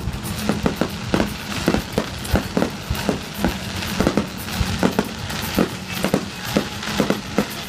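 Aerial fireworks bursting in quick succession during a finale: a rapid string of sharp bangs, about three or four a second, over a continuous crackle.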